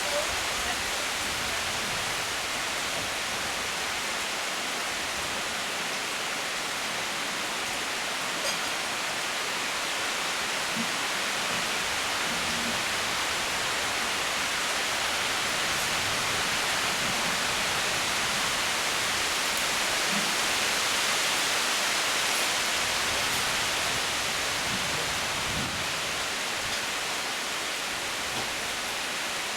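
Steady heavy rain falling, an even hiss with no breaks.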